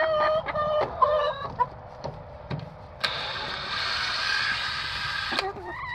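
Hens clucking for the first second or so, then a cordless drill runs steadily for about two and a half seconds on the screws of a coop door hinge.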